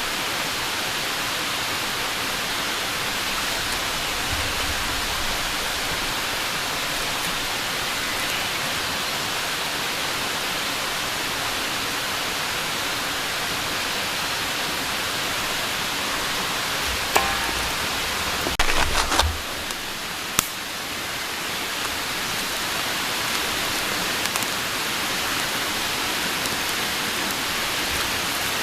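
Steady hissing noise, with a brief cluster of clicks and knocks about two-thirds of the way through.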